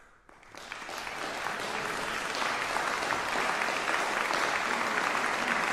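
Concert audience breaking into applause: the clapping starts about half a second in, swells over the next second, then holds steady.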